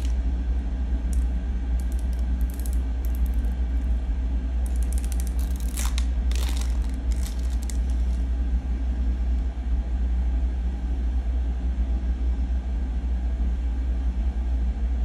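Steady low rumble throughout, with scattered crinkling and crackling of a vinyl decal and its backing paper being peeled and pressed onto a steel frame by hand, busiest around six seconds in.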